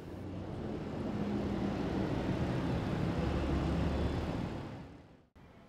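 City street traffic: bus and car engines running in slow traffic with a steady low engine hum, fading away near the end.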